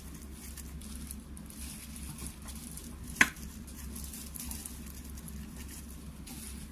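Light rustling and handling of food as pieces are laid into a serving basin, with one sharp clack a little over three seconds in.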